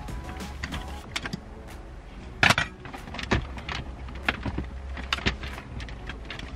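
Car interior console parts and electrical connectors being handled and fitted back into place: a run of irregular clicks and light knocks, the loudest a clatter about two and a half seconds in.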